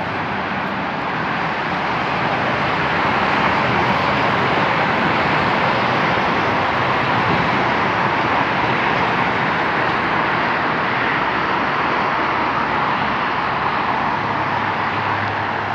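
Steady rushing outdoor noise on an open terrace, even and unpitched, swelling slightly over the first few seconds and then holding level.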